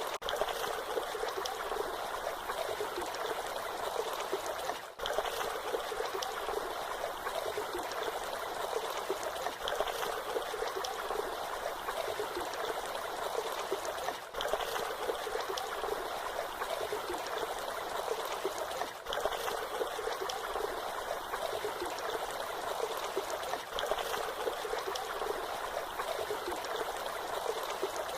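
Waterfall: a steady rush of falling water, with a brief dip in level every few seconds.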